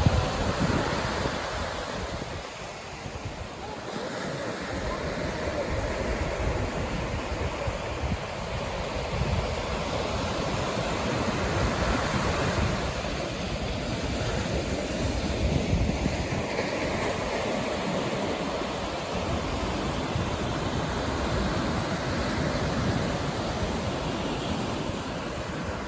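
Ocean surf breaking and washing up the beach in a continuous rush that swells and eases, with wind rumbling on the microphone.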